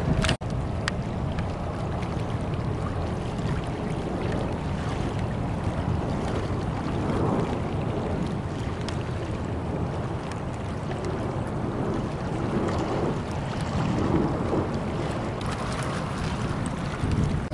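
Wind rushing over the microphone above a steady low rumble of distant jet airliners' engines. The sound drops out for a moment just after the start.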